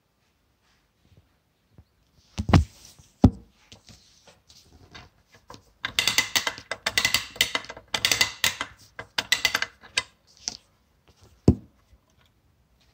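Clockwork tin toy with its spring-driven gears and tin parts rattling in a fast run of clicks for about four seconds. Two heavy knocks come before it and another knock comes near the end.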